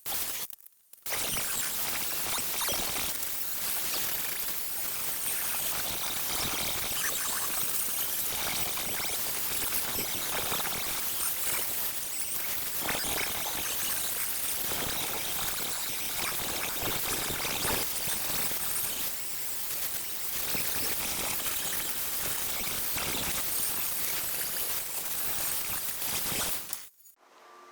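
Power tool working the car's bare sheet-metal body, giving a steady hissing noise that starts about a second in and cuts off suddenly near the end.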